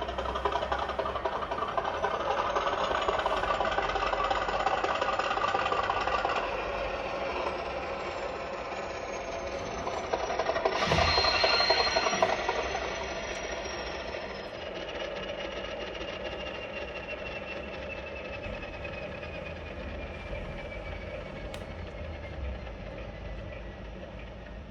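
Recorded Class 50 diesel engine sound from a DCC sound decoder, played through the model locomotive's speaker. The engine is working up with a rising turbocharger whistle, then runs down with the whistle slowly falling. A louder noisy surge comes about eleven seconds in.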